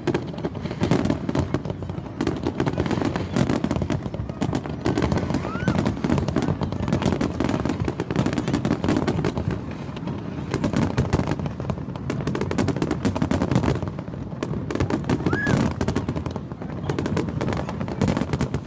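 Fireworks going off continuously: a dense, rapid run of bangs and crackles with no letup.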